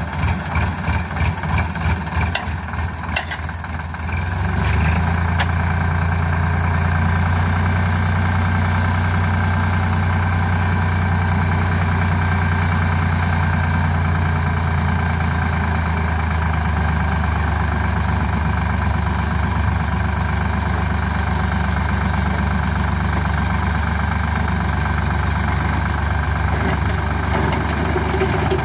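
Tractor diesel engine chugging at idle, then about four seconds in it picks up and runs steadily at higher revs. This is the engine driving the hydraulic pump that raises the tipping trailer to dump its load of soil.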